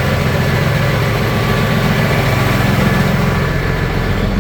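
Freightliner truck's diesel engine running steadily at idle with the PTO engaged, driving the digger derrick's hydraulics; the engine note swells a little past the middle. The PTO is working and the truck sounds healthy after a new PTO solenoid.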